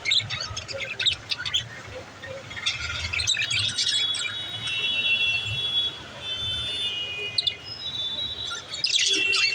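Pet budgerigars chirping and warbling, with dense chirps at the start, a run of held warbled notes in the middle and another burst of chirps near the end.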